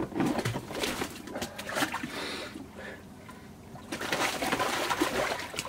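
Icy water sloshing and splashing in a portable ice-bath tub as a man steps in and lowers himself into it. Short breathy vocal sounds from him come through at the start, and the water is busiest about four seconds in.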